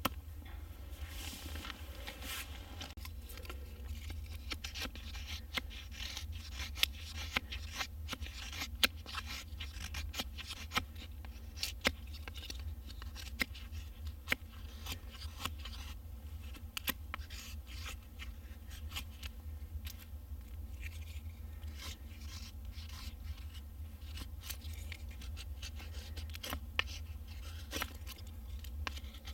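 Knife blade shaving thin curls off a wooden stick to make a feather stick: a run of short, irregular scraping strokes, each ending in a small crisp click.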